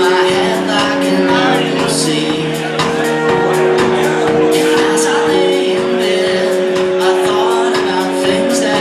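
A live band playing in a hall: drums and cymbals keep a steady beat under held chords.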